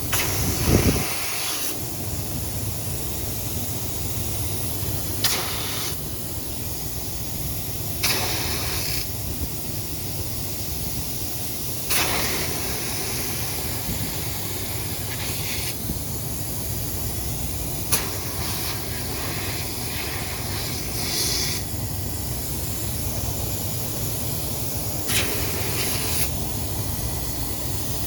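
Nitrogen hissing out in short bursts every few seconds as it blows flush solvent and dirty residue out of an air-conditioning line, over a steady low rumble.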